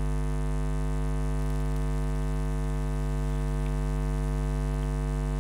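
Steady electrical mains hum on the recording, a low constant tone with a buzzy stack of overtones that does not change.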